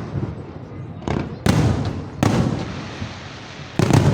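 Fireworks salute shells bursting: four sharp booms in quick succession, the last near the end, each fading away over about a second.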